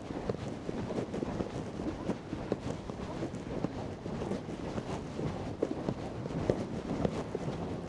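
Wind buffeting the microphone in a steady low rumble, with the irregular crunching steps of someone walking.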